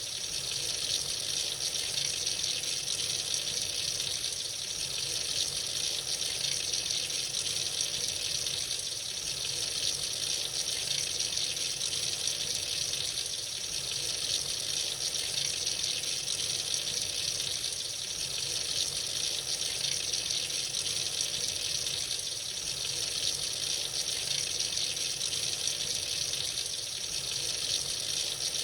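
Tap water running freely into a sink: a steady, unbroken splashing hiss with slight swells in level.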